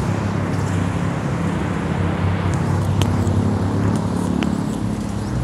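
Road traffic with motor-vehicle engines running steadily, plus a few short light clicks.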